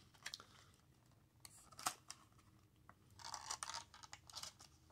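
Faint crinkling and clicking of a thin plastic bag and clear plastic packaging being handled to free a USB receiver dongle, with one sharp click a bit under two seconds in and short bursts of crinkling a little past three seconds and again near the end.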